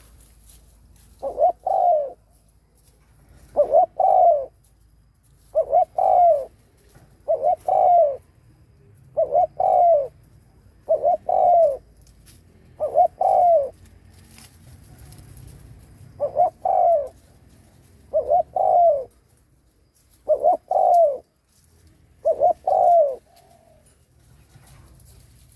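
Spotted dove giving its cooing 'gù' call: short, falling double coos repeated about every two seconds, with a longer pause about halfway through, over a faint low hum.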